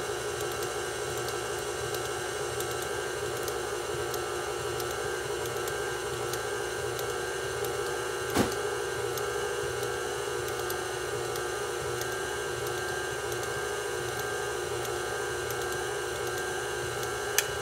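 Electric tilt-head stand mixer running steadily at low speed, its motor giving an even whine as it beats thick cake batter in a steel bowl. There is one brief knock about halfway through.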